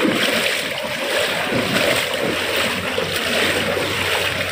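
Floodwater sloshing and splashing in a steady rush, with some wind noise on the microphone.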